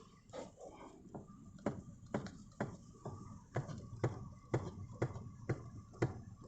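Toyota Verso steering column knocking sharply as the steering wheel is turned left and right, about two knocks a second. The knock turns out to come from a loose, hand-slack nut just ahead of the upper universal joint of the steering shaft; tightening it cures the knock.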